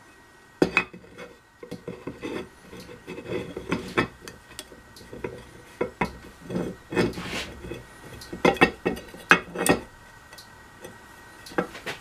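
Machined metal parts of a Case backhoe's shuttle-shift transmission handled on a workbench: a steel plate set onto the housing and turned against it. There is a knock about half a second in, then irregular clinks, knocks and scraping that thin out after about ten seconds.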